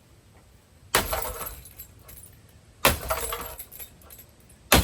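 A ceiling fan being smashed: three sudden crashes about two seconds apart, each followed by a clattering rattle of breaking parts trailing off.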